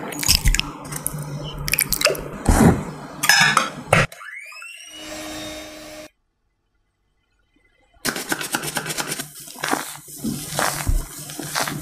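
Knocks and clinks against a glass mixing bowl, then a quieter steady hum from an electric hand mixer whipping eggs. About two seconds of silence follow, then a spatula scraping and folding flour into the batter against the glass.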